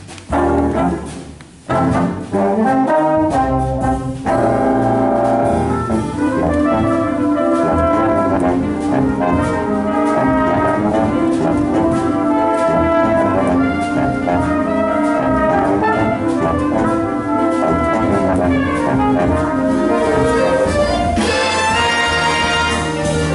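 A jazz big band with its trombone and trumpet sections playing live: a few short, loud ensemble hits at first, then from about four seconds in the full band plays on continuously.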